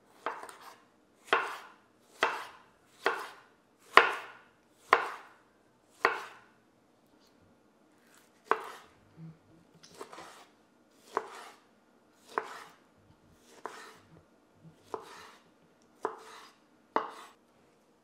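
Chef's knife dicing tomatoes on a wooden cutting board: sharp knocks of the blade meeting the board, about one a second, each with a brief slicing tail. There is a short pause partway through before the cuts resume.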